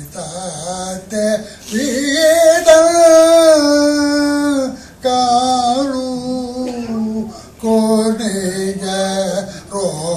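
A man singing in long held notes that bend slowly in pitch, with one note held for about three seconds near the middle.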